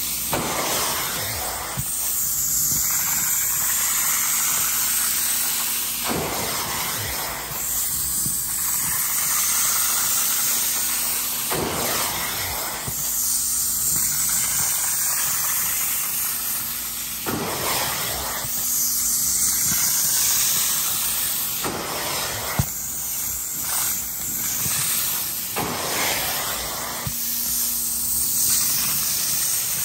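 Hot-water extraction upholstery tool spraying and vacuuming a fabric sofa cushion: a steady hiss and suction rush that swells with each pass of the tool, about every five seconds.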